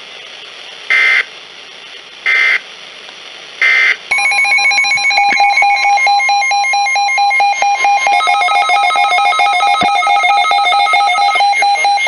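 NOAA weather alert radios going off for a severe thunderstorm warning: three short high beeps about a second apart, then from about four seconds in a loud continuous electronic alarm of several steady and pulsing tones, which changes pattern partway through.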